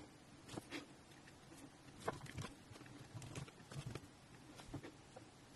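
Faint, irregular clicks of typing on a MacBook Pro laptop keyboard, as a new account name and password are entered.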